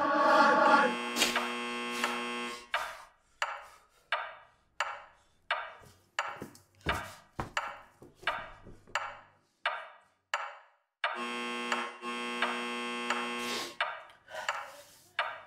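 Apartment intercom door buzzer sounding two long steady buzzes, one about a second in and one about eleven seconds in: a caller ringing from downstairs. Between and after them comes a run of short, sharp strikes about one every 0.7 seconds, each dying away.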